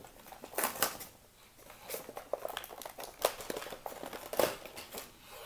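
A clear plastic blister pack and its torn cardboard backing crinkling and crackling in quick, irregular crackles as hands pull the package apart.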